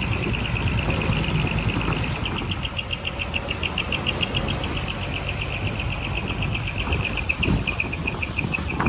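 Insects chirping in a steady, rapid high pulse of about nine chirps a second, over the low rumble of heavy machinery.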